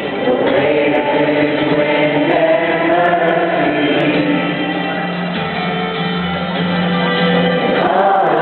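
Live Christian worship song played by a band, with a male lead voice and many voices singing a slow, held melody over a sustained low note.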